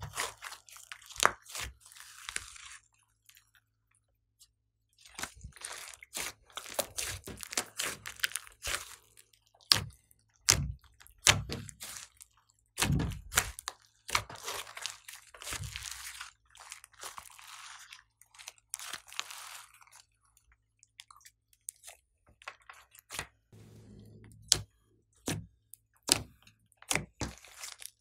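Thick glossy slime, mixed with clay and glitter, being stretched, folded and pressed by hand: irregular sharp pops and crackles with stretches of squishy crackling and a couple of short pauses.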